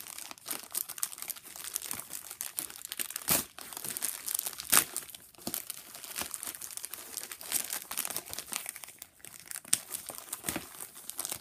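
A delivery package being opened by hand: its wrapping crinkling and tearing unevenly, with two sharper, louder tears about three and a half and five seconds in.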